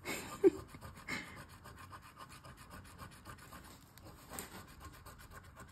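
A coin scraping the scratch-off coating of a lottery ticket in quick, repeated strokes. There is one brief louder sound about half a second in.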